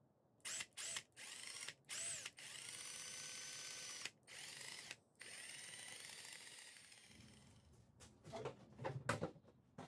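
Cordless drill motor spinning a long cylinder mounted in its chuck: a few short trigger pulses, each a rising whine as the motor spins up, then two longer runs with brief pauses that fade out. Near the end, a few knocks.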